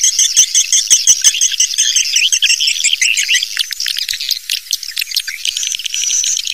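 Swiftlet call recording of the kind used to lure swiftlets into nest houses: dense, rapid high-pitched twittering and chirping, with a few sharp clicks about a second in.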